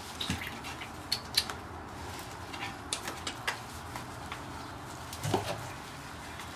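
A litter of puppies scrambling and playing around a person on a kennel floor: scattered light clicks, taps and scuffles from paws and claws, with one short low sound about five seconds in.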